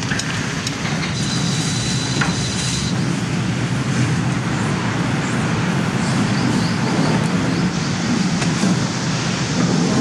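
Steady wind rumbling and buffeting on the microphone, heaviest in the low end and flickering throughout.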